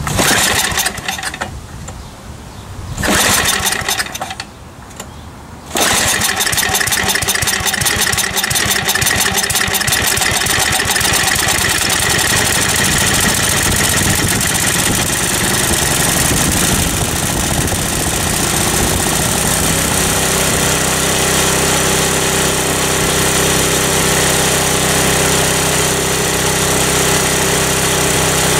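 Snowblower's four-stroke engine pull-started on choke with the recoil starter: a couple of pulls, then it catches about six seconds in and keeps running, its sound settling into a steady run about twenty seconds in.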